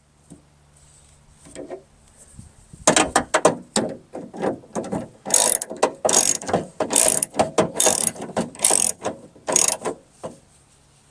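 Ratchet wrench clicking in short, quick repeated strokes, starting about three seconds in and stopping near the end, while the door handle's bolts are tightened.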